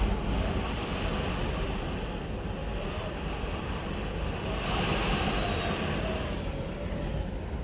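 Strong typhoon wind blowing hard and continuously, with a deep rumble. A gust swells about five seconds in, adding a faint whistling tone.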